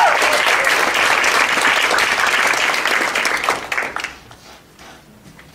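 Audience applauding, many hands clapping together, dying away about four seconds in to a few last scattered claps.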